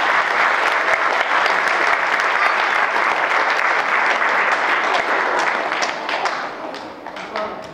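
An audience applauding. It dies away about six seconds in, leaving a few scattered claps.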